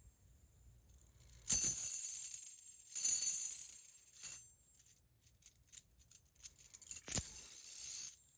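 Titanium fidget spinner flicked into spinning three times; each flick sets off a bright metallic jingling with a high ringing tone that fades over about a second.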